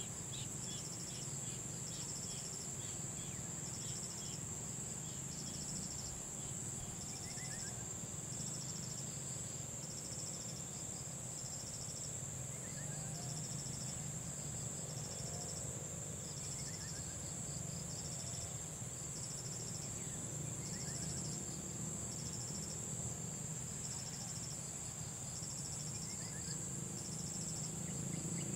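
Insects trilling: one high continuous buzz, with a second insect pulsing on and off about once a second. A short falling chirp comes every few seconds over a low steady rumble.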